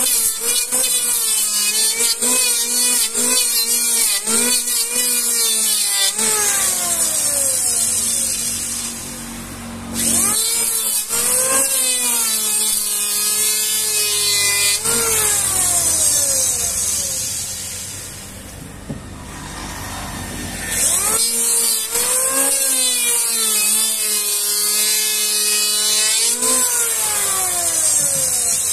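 Handheld electric planer shaving a wooden beam in repeated strokes: a high whine from the spinning cutter head, with the motor's pitch dipping as the blades bite into the wood and rising again as each stroke ends. The cutting eases off twice for a couple of seconds before starting again, and dies down near the end.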